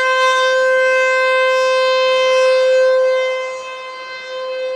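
American Signal Corporation T-128 rotating electromechanical warning siren sounding a steady full-alert tone at one unchanging pitch, loud at close range. Its level drops about three and a half seconds in as the rotating horn sweeps away.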